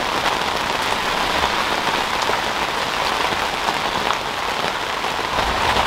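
Steady rain falling on a camping shelter and its clear urethane window, heard from inside, with a constant hiss and many small individual drop ticks.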